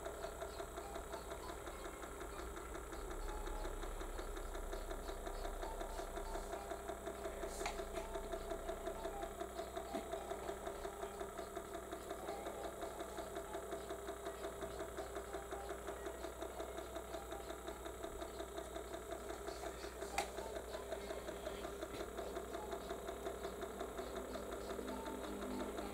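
Small electric motor of a rotating display turntable running steadily with a fast, even pulsing. Two sharp clicks, one about 8 seconds in and one about 20 seconds in.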